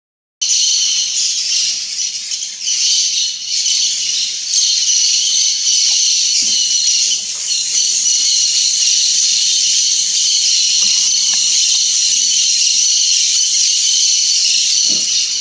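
Loud, dense chorus of Amazon rainforest insects: a steady high-pitched buzz of several layered tones, cutting in abruptly about half a second in.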